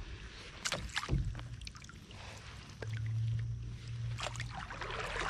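Kayak paddle splashing in river water as a small child paddles, with a few short sharp strikes. A low steady hum comes in about three seconds in and stops about a second and a half later.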